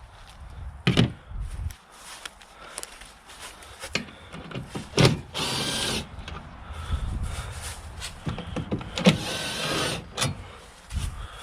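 A small power tool, such as a cordless drill driver, running in two short spells of about a second and a second and a half, among knocks and clicks of parts being handled.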